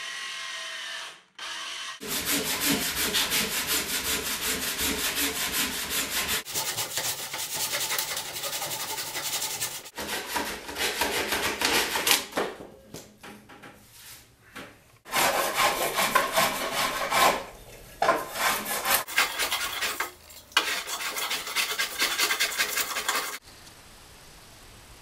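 Hand tool scraping and shaving wood from a wooden steering-oar blade: fast, rough rasping strokes in several stretches, with a quieter patch of scattered scrapes in the middle. The wood is being taken off one side to straighten out the board's bend.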